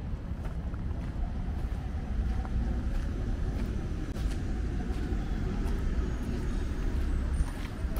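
Outdoor city street ambience: a steady low rumble, such as passing traffic, with a few faint scattered clicks.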